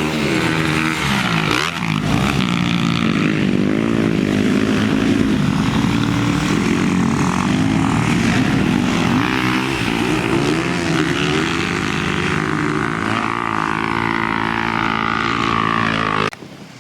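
Dirt bike engine running hard while ridden, its pitch rising and falling as the rider works the throttle. The sound stops suddenly near the end.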